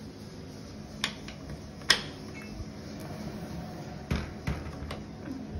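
A few sharp light taps and clicks, the loudest about two seconds in, over a steady low hum in a small room.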